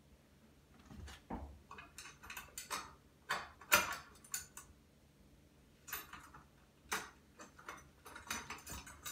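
Small metal hardware clicking and clinking irregularly as a nut is threaded by hand onto a bolt through a metal bracket, with one sharper clink a little under four seconds in.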